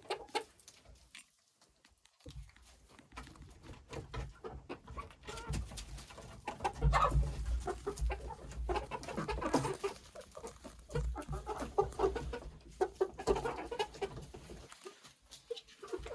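Backyard chickens clucking, with frequent sharp taps and knocks mixed in.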